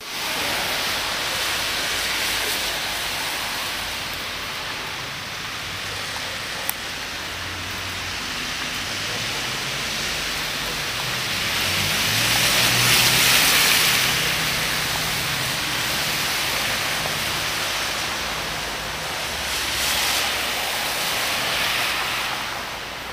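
Steady hiss and patter of wet snow and sleet falling on the street and parked cars, with a vehicle's engine and tyres on the slushy road swelling past about halfway through.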